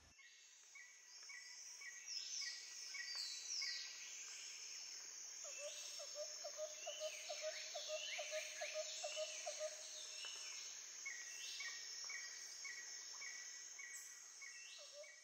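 Birds calling: several overlapping calls, with repeated short chirps, falling whistled notes, and a rapid low trill from about five to ten seconds in, over a steady high hiss.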